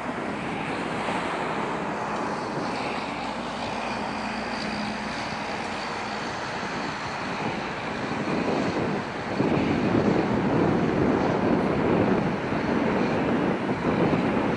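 Boeing 737-500's CFM56 turbofan engines running at high power as the airliner moves along the runway: a steady rushing roar that gets louder about nine seconds in, with wind buffeting the microphone.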